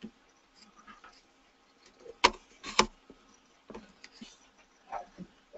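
Two sharp clicks about half a second apart, among fainter scattered ticks and knocks over a faint steady hum.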